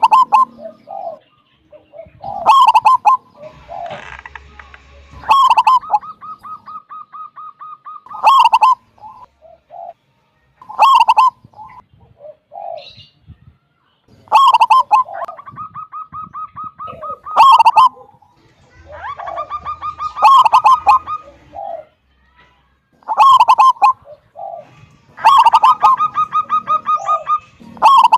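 Zebra dove (perkutut) cooing over and over: a loud cooing phrase about every three seconds, several of them running on into a fast string of short, even notes.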